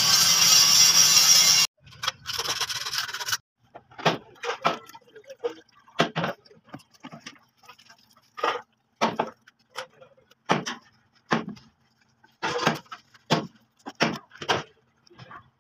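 A soapy scouring pad scrubbing a crane's painted steel by hand: a run of short, irregular rasping strokes, about one or two a second. Before them, a loud, dense sound stops abruptly less than two seconds in.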